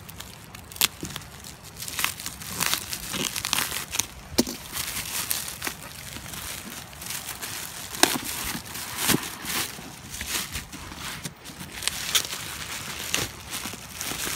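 Plastic courier mailer being cut with a utility knife and torn open, then crinkling and rustling as a bubble-wrapped box is pulled out. Irregular crackling with several sharp snaps throughout.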